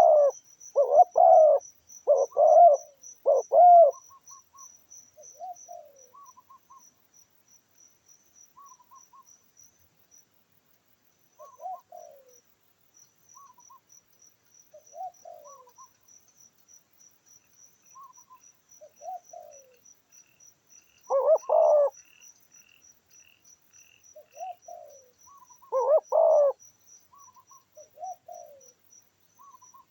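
A dove cooing in loud phrases: four in quick succession at the start, then one at about 21 seconds and one at about 26 seconds. Softer, falling calls come in between. Crickets trill steadily behind.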